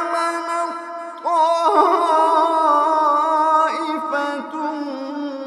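A male reciter chants the Quran melodically in tajweed style, holding long drawn-out notes with ornamented turns in pitch. A new, louder phrase begins about a second and a half in.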